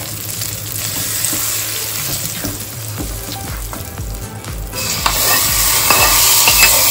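Hot oil tempering (tadka) of cashews and curry leaves sizzling as it is poured onto sambar rice in a metal kadai and stirred in with a spoon. The sizzle grows louder about five seconds in, with light clicks of the spoon against the pan.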